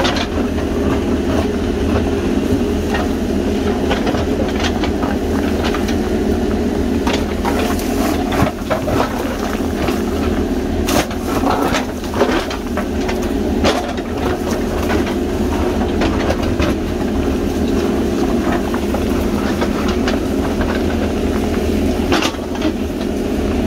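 JCB backhoe loader's diesel engine running steadily under digging load, with the backhoe bucket scraping into rocky soil and scattered knocks and clatter of stones.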